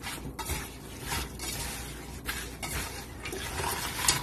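A hand mixing raw chicken feet in a little sauce inside a stainless steel pressure cooker pot: irregular wet, sloshing rustles as the feet are turned over, with a few sharper knocks of feet against the pot, the sharpest just before the end.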